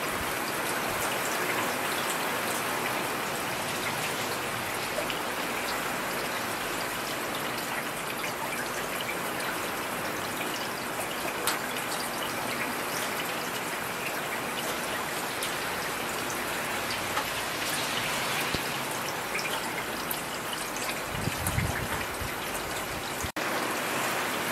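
Steady heavy rain: an even hiss of falling rain with scattered drop ticks, and a brief low rumble near the end.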